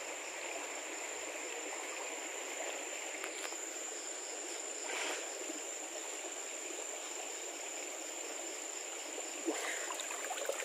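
Shallow river water rushing steadily over rocks, with a steady high-pitched whine over it. Splashing starts near the end as hands lift out of the water.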